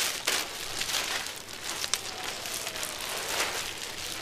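Rustling and crinkling handling noise with a scatter of small crackles and ticks.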